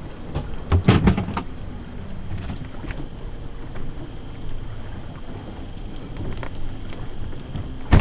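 Inside a sailboat's cabin under way: a steady low rumble with scattered creaks and clicks, and a cluster of loud knocks about a second in.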